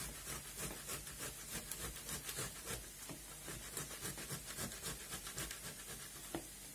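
Fresh tomatoes grated on a stainless-steel box grater: rhythmic wet rasping strokes, about three a second, which stop near the end with a single knock.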